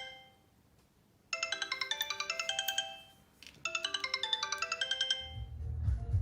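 Sony Xperia stock ringtone: a short phrase of quick, bright chiming notes plays and then repeats after a brief pause. A low bass line joins near the end.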